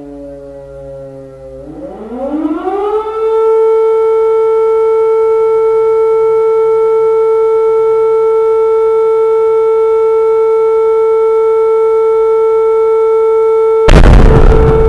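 Civil-defence air-raid siren wailing: its pitch rises about two seconds in, then holds one steady tone. Near the end comes a sudden loud blast, the loudest sound, from exploding cluster bombs.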